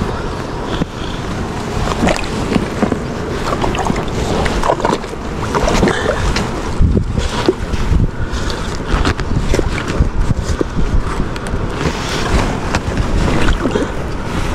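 Steady rush of wind buffeting the microphone over running water, with many small knocks and clicks scattered through it.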